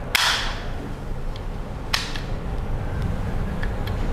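Handling noise from a plastic travel plug adapter being fiddled with: a brief rustle at the start, one sharp click about two seconds in, and a few faint clicks after it.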